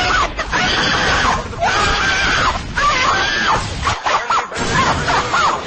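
A child screaming: the 'screaming kid' meme sound effect, a run of long, high shrieks whose pitch rises and falls, with short breaks between them.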